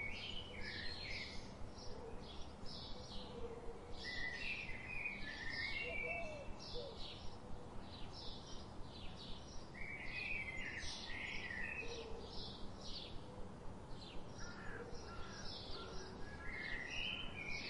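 Small birds chirping: a steady run of short high chirps, with a burst of lower twittering every five to six seconds.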